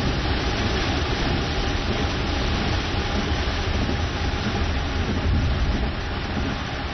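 Heavy downpour, a steady dense hiss of rain with a low rumble underneath.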